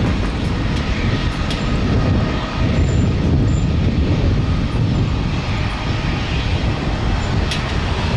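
Jet airliner engines: a steady, loud low roar.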